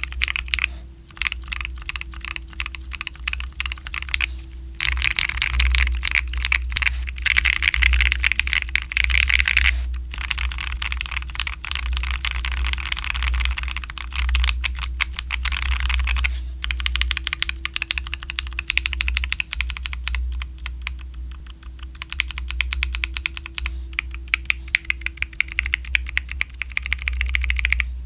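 Fast typing on a Tofu60 2.0 mechanical keyboard with factory-lubed WS Light Tactile switches, a carbon plate and PBT keycaps: dense runs of key clacks with brief pauses about five and ten seconds in.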